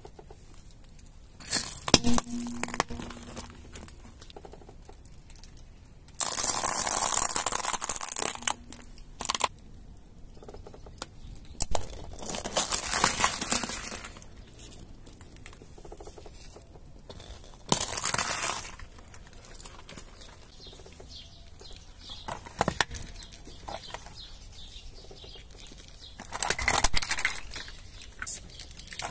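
Car tyre rolling over and crushing small objects, a plate of candy-coated sweets and a yellow plastic toy, in about five separate bursts of crunching and crackling; the longest and loudest comes a little after six seconds in.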